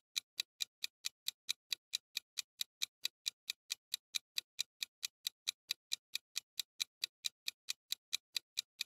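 Clock-ticking sound effect of a quiz countdown timer: short, even, sharp ticks at about three a second.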